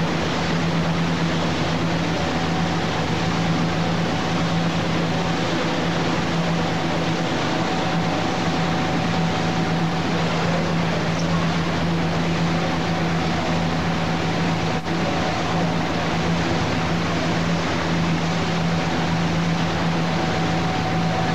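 Boat engine running at a steady speed with a constant low hum, over the even rush of water churning in the wake.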